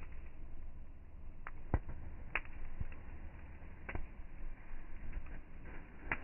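Campfire wood crackling, with a few sharp pops at irregular intervals over a low steady rumble.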